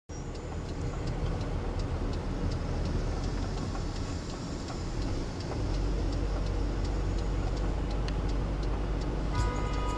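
Car interior while driving: a steady low road and engine rumble, with light ticking through it. Near the end a few steady musical tones come in.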